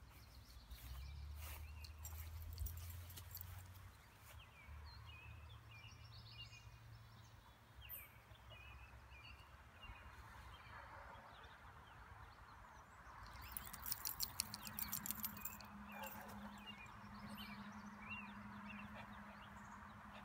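Faint outdoor birdsong: scattered short chirps and calls, with a rapid run of ticking notes about two-thirds of the way through, over a low steady rumble.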